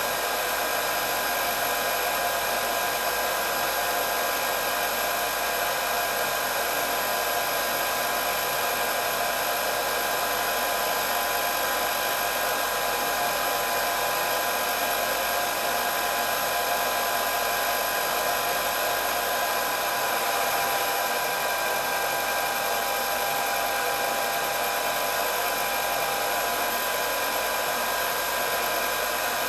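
Electric hair dryer running continuously: a steady blowing rush with a faint motor whine over it.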